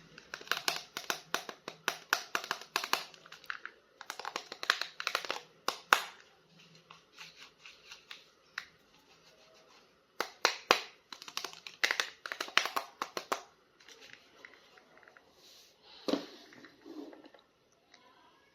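Plastic toy packaging handled and opened: crinkling and tearing in clusters of quick clicks and rustles, with quieter pauses between.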